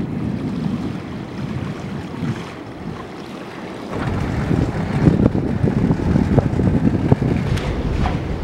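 Wind buffeting the microphone over the rush of sea water around a boat under way; the wind noise gets louder and heavier about four seconds in.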